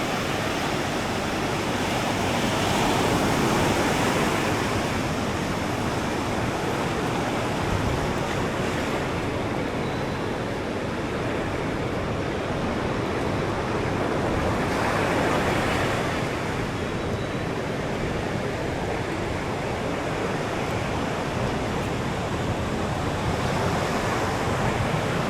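Ocean surf breaking on a beach: a steady rush of waves that swells louder about every ten seconds, with some wind on the microphone.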